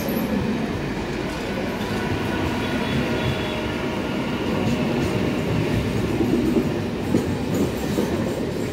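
Eastern Railway electric multiple-unit local train running past along the platform as it pulls into the station: a steady rumble of wheels on rail with clicks from the rail joints, a few more of them late on.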